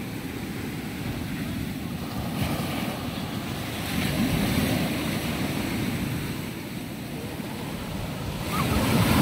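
Sea surf breaking and washing up a sandy beach, with wind rumbling on the microphone. The wash swells louder about four seconds in and again near the end.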